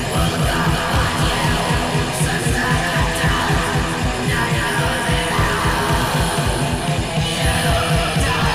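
Speed/thrash metal song: distorted electric guitar over a fast, steady kick-drum pulse, with shouted vocals.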